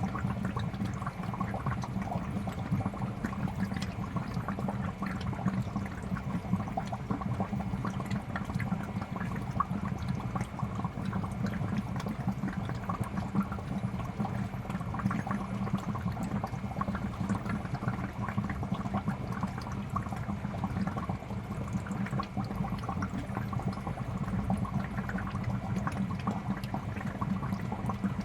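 Aquarium air bubbles rising and gurgling through the tank water in a steady, continuous stream of small pops.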